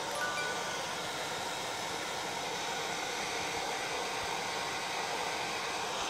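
Handheld hair dryer running with a steady blowing hiss, drying a puppy's damp fur.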